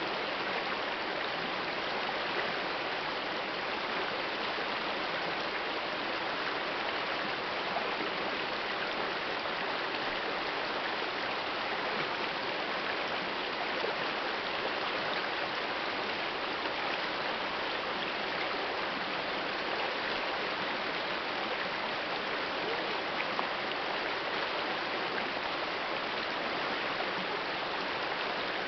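Shallow rocky river flowing over and around boulders: a steady, even babbling of water with small riffles.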